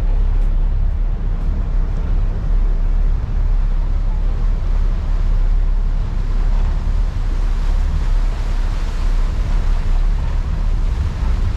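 Steady low rumble of a Sydney ferry under way, mixed with the rush of water and wind buffeting the microphone.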